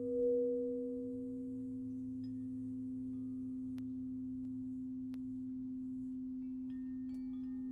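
Crystal singing bowls sounding a steady, pure low drone. A higher bowl tone swells at the start and fades away over the next few seconds.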